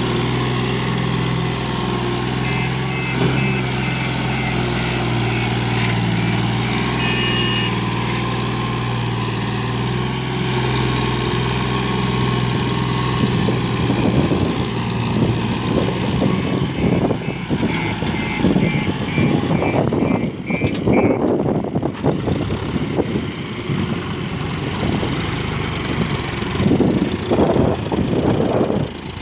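John Deere 5036 D tractor's three-cylinder diesel engine running steadily under heavy load while hauling a fully loaded trolley up a climb. A short high-pitched electronic beeping repeats in two runs, and from about halfway on, loud irregular rushing noise covers the engine.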